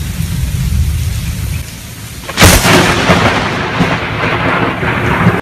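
Heavy rain falling, then about two and a half seconds in a sharp, close thunderclap that breaks into a loud rumble over the rain; the sound cuts off suddenly near the end.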